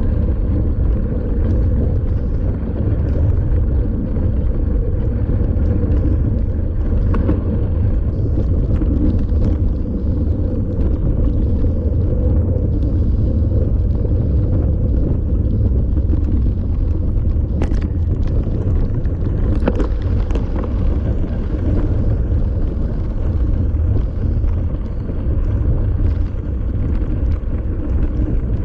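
Steady rumble of wind buffeting the microphone of a camera mounted on a mountain bike riding on beach sand, with a few sharp rattles of the bike about two-thirds of the way through.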